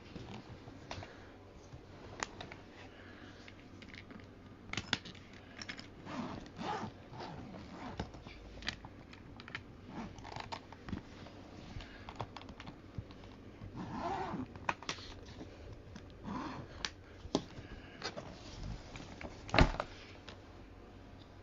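Irregular light clicks, taps and scrapes of objects being handled, with one louder knock near the end.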